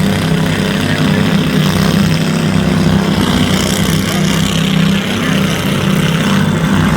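Riding lawnmower engines running together in a steady low drone.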